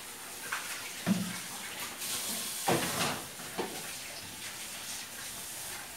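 Water running from a tap into a kitchen sink as a steady hiss, with a few knocks of utensils about a second, two and a half and three and a half seconds in.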